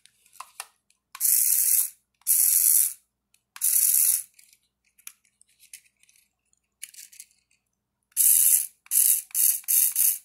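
Tiny 1:64 RC car's electric motor and gears whirring, high-pitched, with the wheels spinning freely in the air as the throttle is pressed. Three bursts of about half a second each come first, then after a pause four quicker, shorter bursts near the end.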